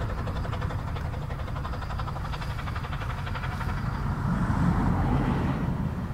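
Narrow-gauge steam train running, a steady low rumble with a fast clatter over it, growing louder about four seconds in and easing off near the end.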